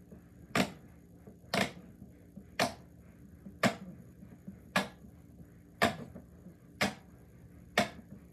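Silicone pop-it fidget toy being pressed, its bubbles popping one at a time in sharp, evenly paced clicks, about one a second.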